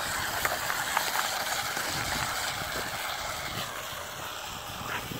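Drift trike's hard rear wheels rolling and sliding over snow-covered ice, a steady rough hiss with a few faint ticks, slowly fading as the trike moves away.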